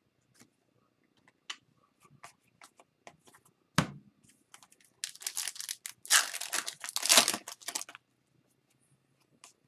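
Foil hockey card pack wrapper being torn open and crinkled by hand: a few light clicks and one sharp knock, then about three seconds of crinkling, tearing foil.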